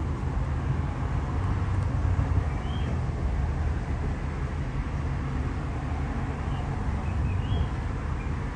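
Outdoor background noise: a steady low rumble, with a few faint, short, high chirps now and then.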